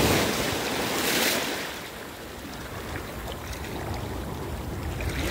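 Small surf waves breaking and washing up over the sand at the water's edge. The wash is loudest at the start and again about a second in, then eases off into a steadier, quieter wash.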